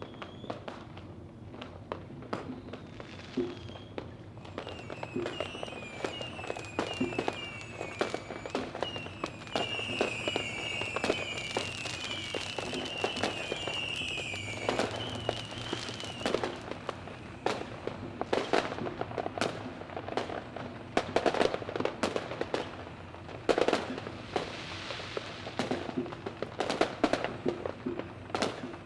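Fireworks going off: a continuous run of crackles and pops with louder bangs scattered through. From about five to sixteen seconds in, a high whistle repeatedly falls in pitch.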